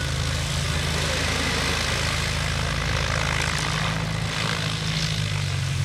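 Pitts aerobatic biplane's piston engine and propeller running steadily close by: a low, even engine drone under a broad rushing noise, its pitch wavering briefly about four to five seconds in.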